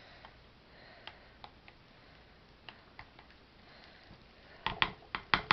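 A spoon stirring thick cold-process soap batter in a container: a few faint scattered clicks, then near the end a quick run of taps against the container, about six a second.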